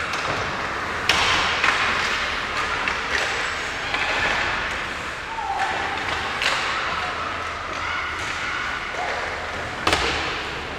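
Ice hockey play: sharp knocks of sticks and puck, the loudest about ten seconds in, over the steady scraping hiss of skates on the ice.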